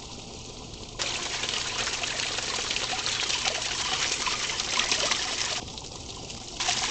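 Steady trickle and splash of running water from a backyard pond, dipping briefly in level near the start and again near the end.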